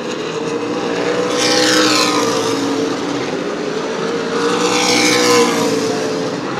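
Super late model stock cars' V8 engines racing at speed, with cars going past twice, about a second in and again about two-thirds through, their pitch falling as they pass.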